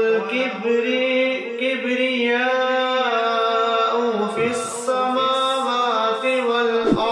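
A man reciting the Quran in Arabic in the melodic chanted style (tilawat). A single voice holds long notes that step and glide between pitches.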